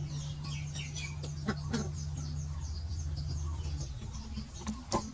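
Birds chirping in quick, continuous short high notes over a steady low hum that fades out about four seconds in, with a few sharp clicks, the loudest near the end.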